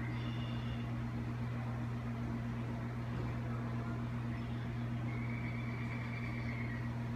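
Steady low electrical hum with an even hiss, unchanging throughout, with a faint high tone briefly about five seconds in.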